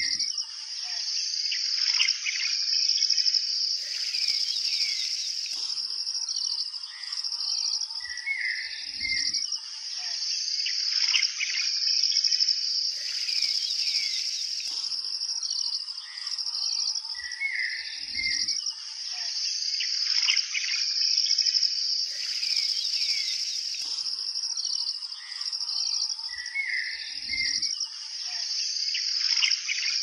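Looped nature ambience: birds chirping over a steady high insect drone, the same phrase repeating about every nine seconds.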